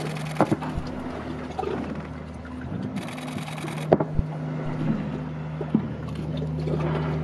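Whale-watching boat's engine idling with a steady low hum, with a few sharp knocks along the way.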